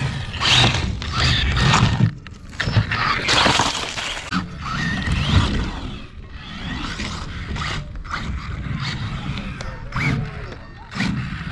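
Hosim 2845 1/16-scale brushless RC truck driving on a plywood ramp. The electric motor whines and revs in stop-start surges, with tyres scrubbing and knocking on the wood.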